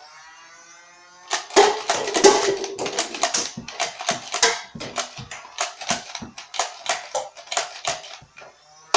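A Nerf Strife's flywheels whine up to speed, then a dense, irregular run of sharp clicks and knocks follows from about a second in, as foam darts fire and strike the targets.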